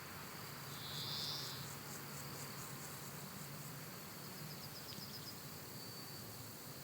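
Summer countryside nature ambience with insects chirping: a short burst of high chirping about a second in and a quick run of chirps around four to five seconds in, over a faint steady low hum.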